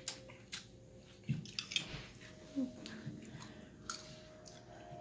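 Eating sounds: light clicks and scrapes of a spoon and fork on a plate, mixed with chewing as a man eats roast chicken and rice. The sounds are short and scattered, over a faint steady hum.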